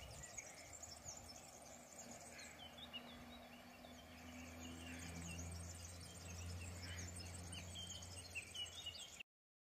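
Faint birdsong: many small birds chirping over a low steady hum that grows a little stronger about four seconds in. The sound cuts off abruptly near the end.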